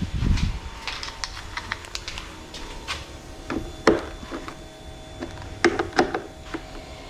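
Hand tools and hardware being handled while bolting on a bracket: scattered sharp clicks and knocks, with a low thump at the start and a few louder knocks in the second half.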